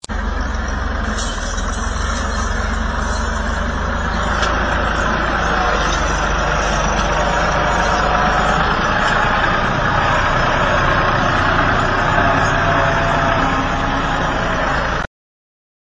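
Ford farm tractor's engine running steadily under heavy load as it pulls a loaded trolley, heavy enough to lift the tractor's front wheels. The sound cuts off suddenly about a second before the end.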